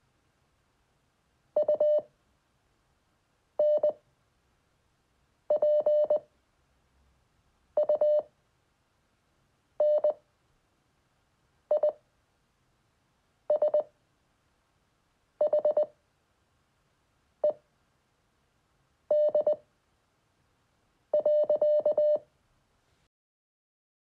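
Morse code practice tones: one steady mid-pitched beep keyed on and off in short dots and longer dashes, sounding out a sentence slowly, one letter roughly every two seconds.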